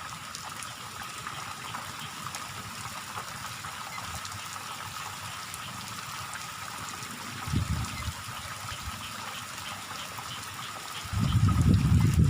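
Steady hiss of rain and running water. Low buffeting rumbles of wind on the microphone come briefly about seven and a half seconds in and again, louder, from about eleven seconds on.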